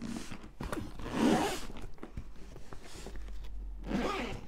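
The zipper of a hard-shell diamond painting storage case being pulled open to reach its lower compartment, with the case rubbing and scraping on a wooden table. Two stronger zip strokes, the louder about a second in and a shorter one near the end.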